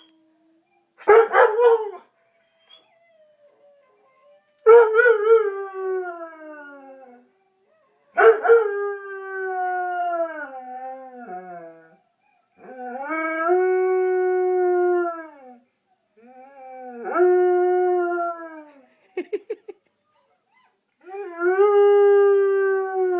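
A pet dog howling: a short yelp, then five long drawn-out howls a few seconds apart, each sliding down in pitch as it trails off.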